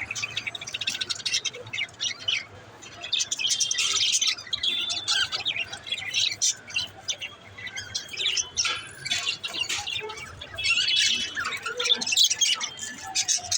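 Several pet birds chirping and warbling together in a dense, continuous chatter, with the odd squawk.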